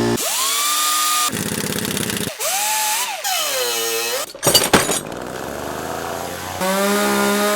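A run of short cut-together clips of power-tool work on an engine's belts: a motor whines up to speed and holds, then a buzzing rattle, another whine that rises and falls, a few sharp clicks and knocks about four and a half seconds in, and a steady hum near the end.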